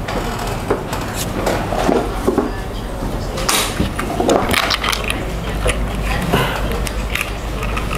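Irregular clicks, knocks and rustling from a fishing rod being handled and set on a scale to be weighed, busiest around the middle.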